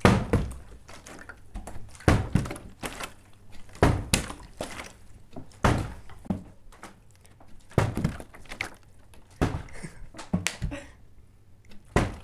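A partly water-filled plastic bottle being flipped and landing on a table, making a series of dull thunks about every one and a half to two seconds.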